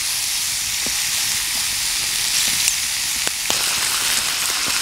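Bratwurst chunks and vegetables frying in oil in a skillet over a campfire: a steady sizzle with scattered small pops.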